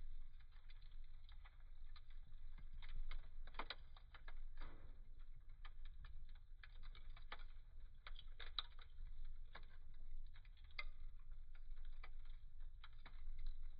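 Wood fire burning in a fireplace, crackling with irregular sharp pops and snaps over a low rumble of the flames.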